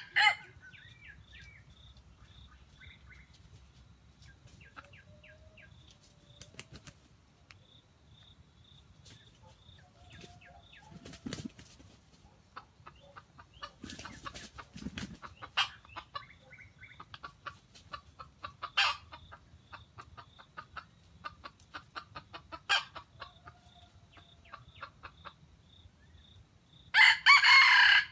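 A junglefowl rooster crows once near the end, a loud call about a second long. Before that come faint scattered clicks and a few soft low calls, over a faint high ticking that repeats steadily.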